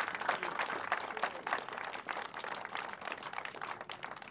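A small crowd applauding with many hands clapping, gradually thinning out toward the end.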